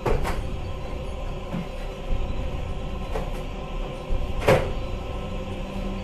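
A few sharp knocks and clacks of hard objects being handled, the loudest about four and a half seconds in, over a steady low drone.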